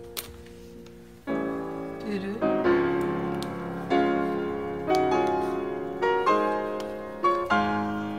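Background piano music: a soft held chord, then from about a second in louder piano notes and chords struck roughly once a second, each fading away.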